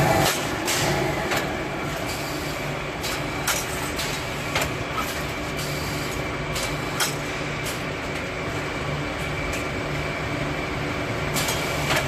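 Automatic bag-closing machinery on a drum-packing line running with a steady hum, with scattered sharp clicks and knocks as its arms gather and twist the liner bag shut.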